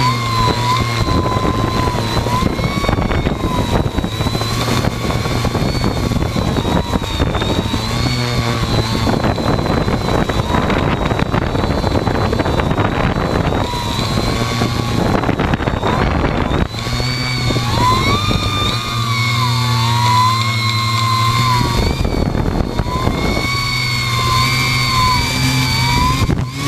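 Carboncore hexacopter's six electric motors and propellers whining as heard from its onboard GoPro camera. The pitch wavers up and down as the aircraft manoeuvres. Rushing wind noise on the microphone comes and goes over the whine.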